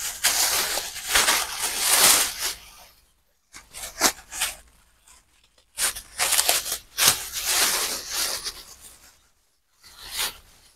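Striped plastic bag rustling and crinkling in several bursts with short pauses between them, as it is handled and opened by hand and fabric is pulled out of it.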